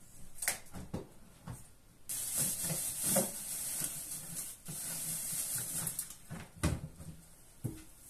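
Freezer door pulled open with a few clicks, then a few seconds of hissing rustle from frozen food in plastic bags as a freezer drawer is rummaged through. Two knocks near the end, the first loudest, as drawers and packages are shifted.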